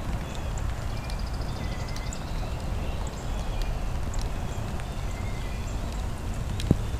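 Steady low outdoor rumble with small birds chirping throughout, a quick high trill about a second in, and a single sharp tick near the end.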